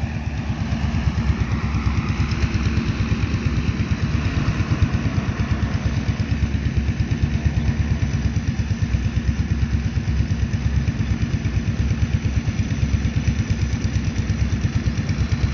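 DJI Agras T30 agricultural drone's six rotors running steadily in flight, a loud low buzz with a rapid pulsing flutter.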